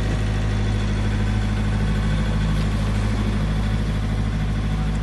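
An engine running steadily at an even pace, a constant low hum with no change in speed.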